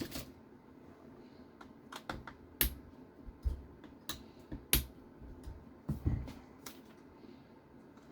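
Irregular light clicks and taps of small plastic and metal RC car parts and tools being handled during disassembly, with the sharpest clicks a little after two seconds in and near five seconds in.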